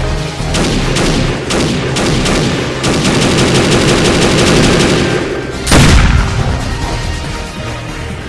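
Gunfire sound effects over music: half a dozen single shots, then a rapid burst of automatic fire for about two seconds, then one loud blast about six seconds in.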